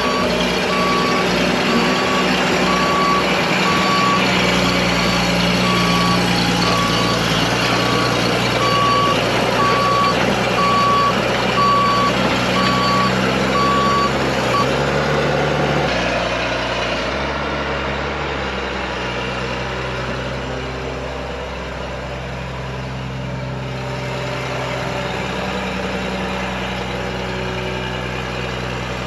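Cat 318B hydraulic excavator's diesel engine running, with its travel alarm beeping at a steady pace while the machine moves. The beeping stops about halfway through, and soon after the engine drops to a lower, steadier idle.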